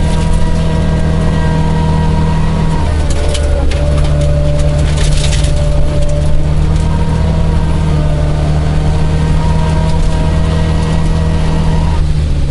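1977 Isuzu Gemini coupe's 1600cc four-cylinder engine, heard from inside the cabin, running hard at steady revs on a gravel rally stage, with a brief dip and rise in revs about three seconds in. Gravel rattles and pings against the car's underside, most densely around four to five seconds in.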